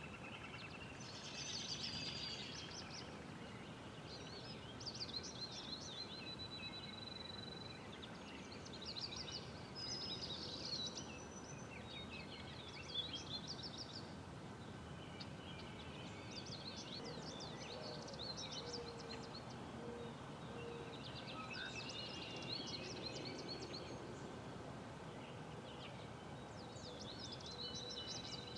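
Songbirds singing outdoors, short high phrases and whistles every few seconds, over a steady background hiss of outdoor noise.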